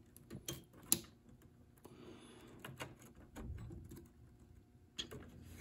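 Faint clicks and light knocks from handling the circuit board and its wiring inside a Califone AV80 cassette recorder's chassis as the board is worked loose, with a few sharper clicks about half a second and a second in and again near the end, and a soft rustle in between.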